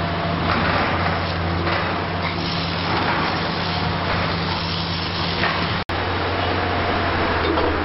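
Liebherr R 960 demolition excavator's diesel engine running at a steady hum, under rough, uneven clattering and grinding noise from the demolition work. The sound drops out for an instant about six seconds in.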